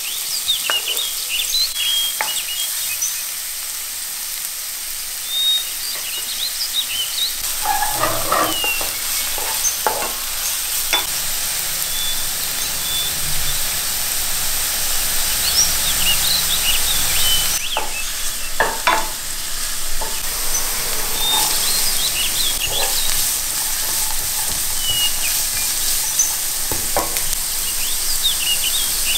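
Diced onion frying in hot oil in a pan: a steady sizzle with small crackles, and now and then the short scrape of a spatula stirring it.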